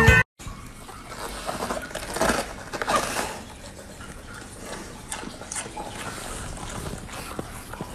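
Golden retriever biting into and chewing a head of cabbage: irregular crisp crunches, busiest in the first few seconds and then lighter.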